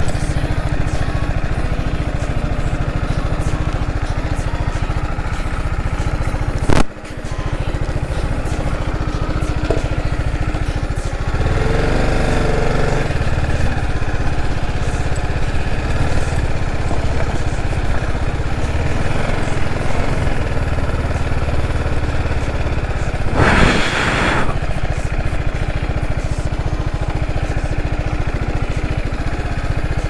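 Bajaj Pulsar RS200's single-cylinder engine running as the motorcycle is ridden over a rough, stony off-road track. There is one sharp knock about seven seconds in and a brief rush of noise later.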